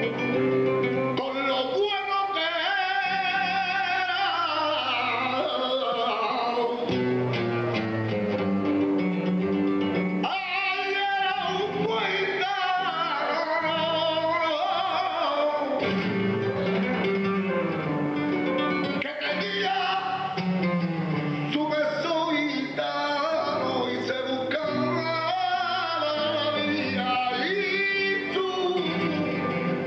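Flamenco fandangos: a male cantaor singing long, ornamented lines that bend and waver in pitch, accompanied by a flamenco guitar.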